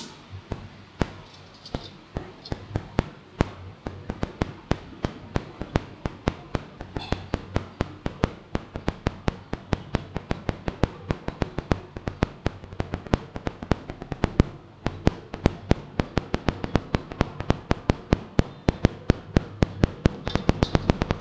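Rapid, irregular sharp clicking and tapping, a few clicks a second at first and growing denser towards the end.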